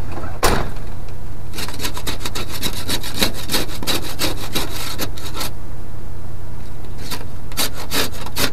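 A truck door slams shut about half a second in. Then come two runs of rapid scraping strokes: a broken ice scraper chipping freezing-rain ice off the side window glass, heard from inside the cab. The idling engine hums steadily underneath.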